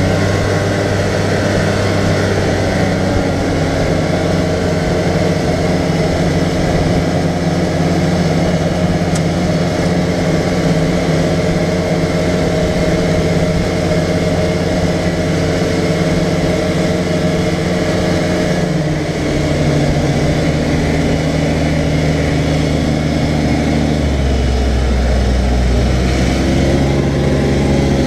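Arctic Cat side-by-side UTV's engine running steadily at speed on a gravel road, with wind and tyre noise over it. The engine note drops about two-thirds of the way through, and a deeper rumble comes in near the end as the machine turns.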